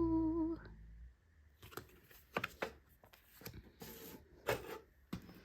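A drawn-out 'ooh', then scattered light taps and rustles of photo cards and their packaging being handled, spaced unevenly about a second apart.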